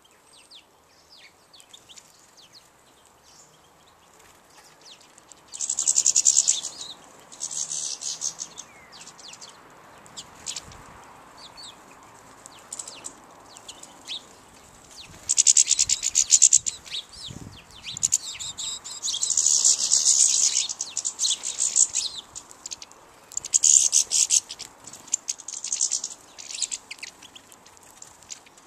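Small songbirds twittering: faint high chirps, then from about six seconds in, repeated loud bursts of rapid high-pitched trilling, each a second or two long, with quieter calls between.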